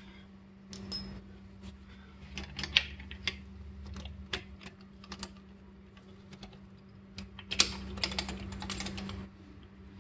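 Irregular light metallic clicks and clinks of small steel parts and tools being handled at a brake caliper, just after the pad retaining pins have been knocked out. The clicking grows busier for a couple of seconds near the end.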